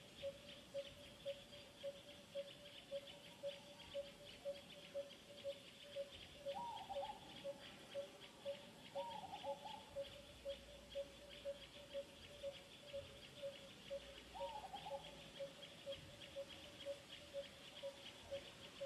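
Wildlife ambience: a short call repeating steadily about twice a second, over a continuous high buzzing trill. Three brief chirping calls come about a third, a half and three quarters of the way through.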